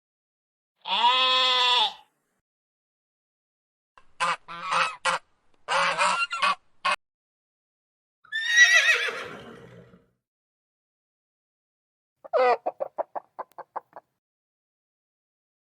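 Farm animal calls, one after another with short silences between: a steady pitched call, then a run of short honks, a falling call, and a call that breaks into quick fading pulses. Honking and clucking farm fowl such as geese and chickens are among them.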